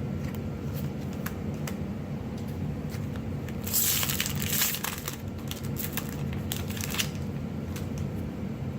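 Foil booster pack wrapper crinkling and tearing, with a louder burst of crackling about four seconds in and scattered light clicks and rustles around it.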